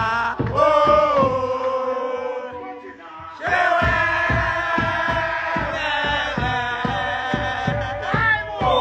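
A group of men singing and chanting loudly together over a steady beat of about two strokes a second. The sound fades for a moment about three seconds in, then comes back in full.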